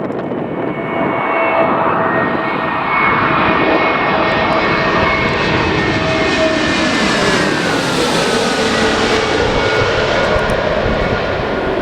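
Landing airliner's engines passing close overhead on approach: a loud, steady whine with several held tones that glide down in pitch about eight seconds in as the aircraft goes past.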